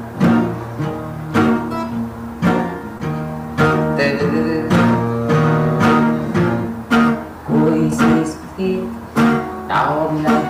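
Background music: an acoustic guitar strumming chords in an even rhythm, a new chord roughly once a second.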